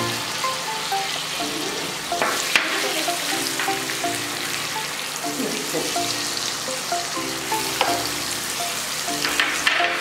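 Butter sizzling and foaming as it melts into hot caramel in a nonstick frying pan, with a few sharp taps and scrapes of a silicone spatula.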